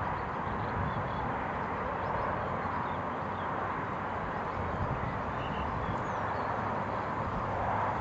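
Steady outdoor background noise: wind rumbling on the microphone under a constant hiss, with a few faint, short bird chirps.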